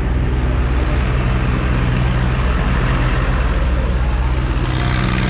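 A heavy vehicle engine running steadily at a constant speed.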